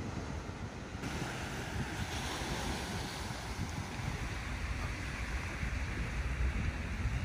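Sea waves washing onto the shore, a steady rushing hiss that starts abruptly about a second in, over the low rumble of wind buffeting the microphone.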